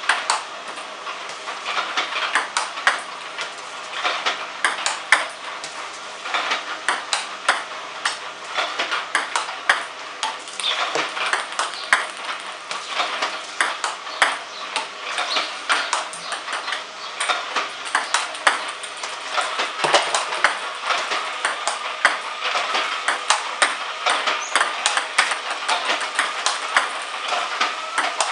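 Table tennis ball clicks repeating a few times a second: an iPong Master V300 ball robot feeding balls while a player returns them backhand, the ball ticking off the table and the paddle and into the catch net.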